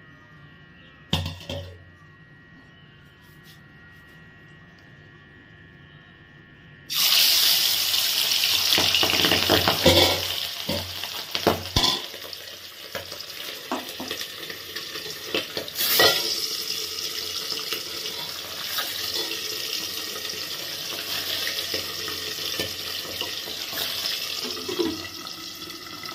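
Pabda fish pieces frying in hot mustard oil in a kadai: a loud sizzle starts suddenly about seven seconds in, with spattering pops, and carries on steadily, a little quieter once the pan is covered with a steel lid. One knock about a second in.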